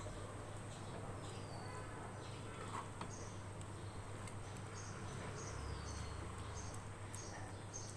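Soft sounds of a spatula stirring thick, wet lentils and leaves in an aluminium pot, over a low steady hum, with a few faint high chirps.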